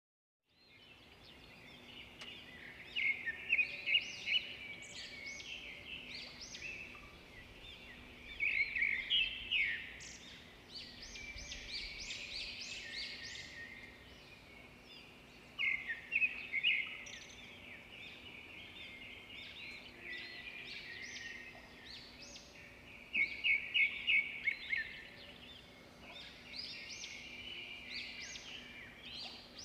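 Birds chirping and trilling in repeated bursts of short quick notes, over a faint steady hum.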